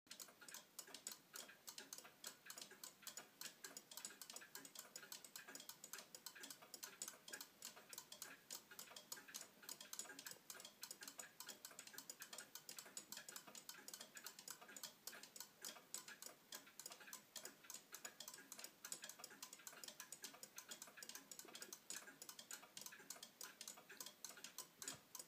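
A 1928 Gilbert pendulum wall clock ticking quietly and steadily, its eight-day-style movement running with all ten bushings freshly replaced.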